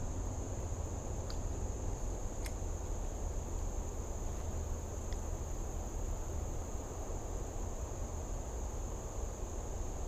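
Insects trilling in a steady high chorus over a low, steady rumble, with three faint clicks.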